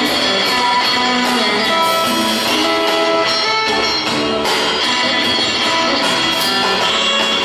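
Live band playing an instrumental passage: electric guitar over upright bass and a drum kit.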